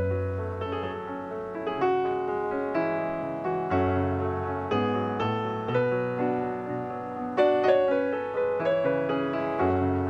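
Background piano music: gentle, slow chords and melody notes, each note struck and left to ring.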